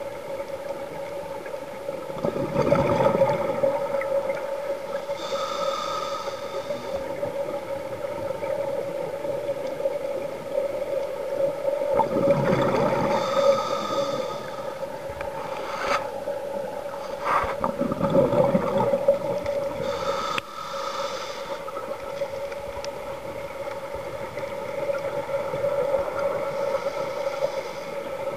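Scuba diver breathing through a regulator underwater. Every six to eight seconds comes a rumbling rush of exhaled bubbles and a shorter hiss of inhalation, over a steady whine from the camera in its housing.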